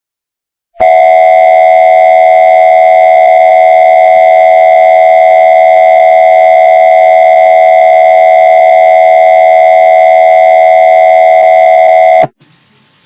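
Emergency Alert System attention signal, a pitch-shifted version of the steady two-tone alert tone. It starts about a second in, holds loud and unchanging, and cuts off sharply near the end.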